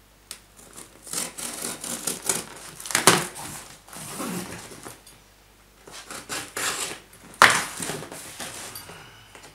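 Karambit knife slitting security tape and corrugated cardboard along a box's edge, with scraping and rustling of the cardboard. Two sharp cracks stand out, one about three seconds in and one about three-quarters of the way through.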